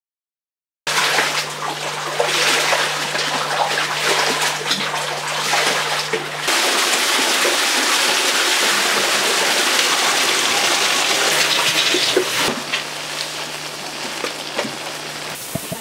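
Liquid dye being poured from a pot into a large metal dye drum, splashing and trickling, with a steady heavy pour for about six seconds in the middle.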